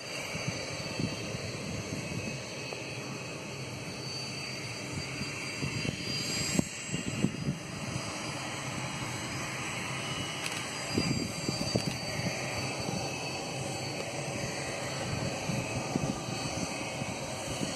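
Distant Cessna Citation 500 business jet taxiing, its twin turbofan engines giving a steady whine and hiss. Irregular low rumbling bumps from wind buffeting the microphone come and go over it.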